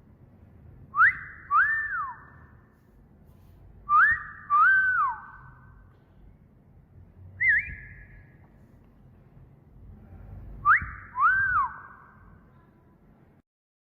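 A wolf whistle, repeated three times with evenly spaced pauses: a quick rising note, then a longer note that rises and falls away, each with an echoing tail. About halfway through there is a shorter single whistled note.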